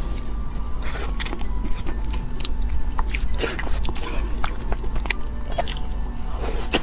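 Close-miked mouth sounds of licking and eating cream off a metal fork, with lip smacks and short sharp clicks and scrapes of the fork against the cake board.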